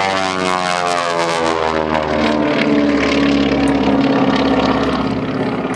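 Twin Beech 18's two Pratt & Whitney R-985 radial engines running, their pitch sliding down over the first two seconds and then holding steady, loudest around the middle.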